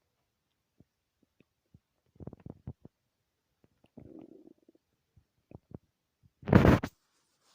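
Human stomach rumbling: scattered small gurgles and pops, a cluster of gurgles about two seconds in, a low rumble about four seconds in, and a loud short gurgle near the end, the loudest of them.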